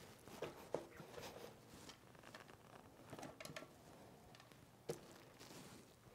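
Faint, scattered clicks and light knocks as a fat-tyred bicycle front wheel is handled and worked into its fork, with one sharper click about five seconds in.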